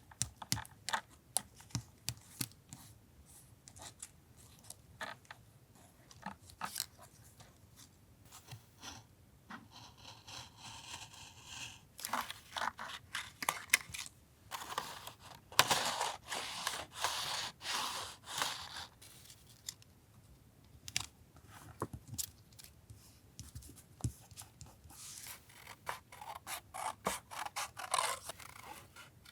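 Paper-crafting sounds: scissors snipping and paper being cut, scraped and handled on a desk, in many short sharp clicks with a few longer stretches of scraping.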